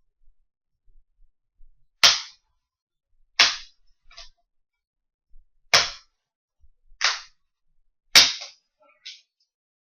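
Plastic retaining clips of an IBM T61 laptop's LCD bezel snapping loose as the bezel is pried off the screen: five sharp snaps about a second or two apart, each followed by lighter plastic clicks.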